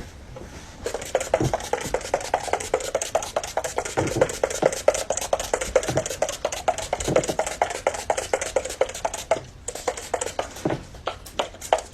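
Rapid, irregular clicking and clattering of small hard objects, several sharp clicks a second, starting about a second in.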